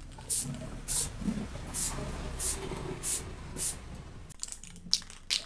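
Aerosol spray paint can spraying in short bursts, about six quick hisses, followed by a few sharp clicks near the end.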